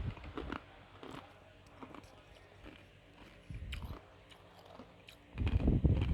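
Ice being crunched and chewed close to the microphone, with scattered small clicks, a burst of crunching about three and a half seconds in and a louder one near the end.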